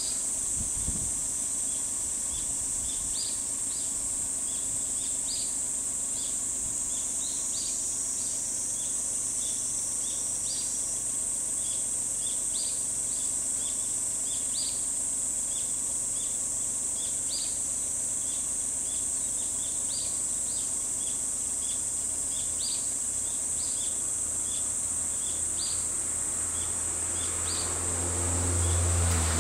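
A steady, high-pitched insect drone, with short high chirps repeating about once or twice a second over it. A low rumble swells near the end.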